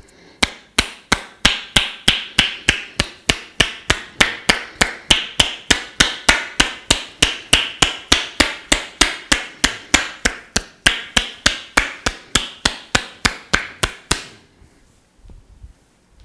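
A masseur's hands striking the client in a rhythmic percussion massage: a steady run of sharp, resounding pops at about four a second that stops about fourteen seconds in.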